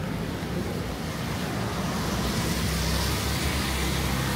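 Street traffic on a rain-wet road: a motor vehicle's engine hum with tyre hiss, growing gradually louder.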